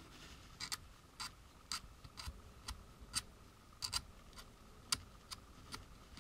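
Hobby knife blade nicking and shaving flash off a small plastic model-kit pulley, a run of faint, sharp little clicks about twice a second, unevenly spaced.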